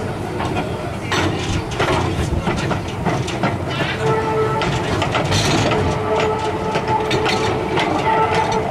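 Steam locomotive K 92 under way, heard from the wagon just behind it: a steady rumble of running gear with repeated short knocks of the wheels on the rails. About four seconds in, a steady squealing tone joins and holds.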